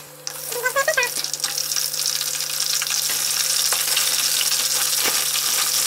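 Eggplant strips frying in hot oil: a sizzle that comes in just after the start, builds, then holds steady.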